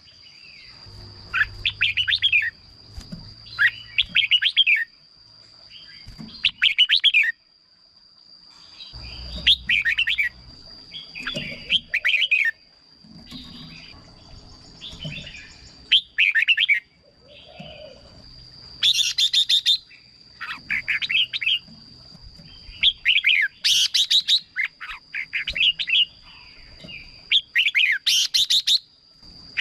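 Red-whiskered bulbul singing: short, fast warbled phrases repeated every second or two.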